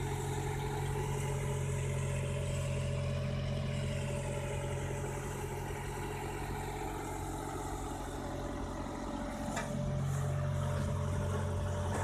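Truck-mounted crane's engine running steadily, powering the crane that holds the steel pole; the engine gets a little louder about ten seconds in.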